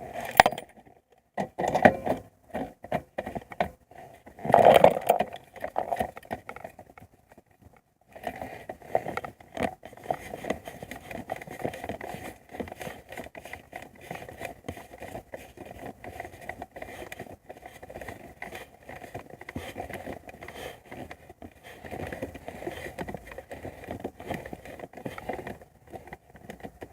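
Car interior parts being handled and fitted by hand: scattered knocks, clicks and scrapes, a few louder knocks in the first few seconds, then a steady run of small clicks and rattles.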